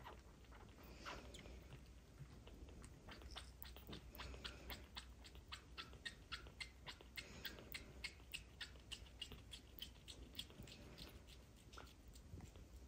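Kitten suckling milk from a feeding-bottle nipple: faint, quick wet clicks, about four a second, starting about three seconds in and fading near the end.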